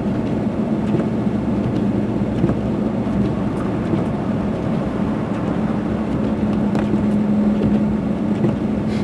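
Car driving on a snow-covered road, heard from inside the cabin: a steady low engine hum under continuous tyre and road noise.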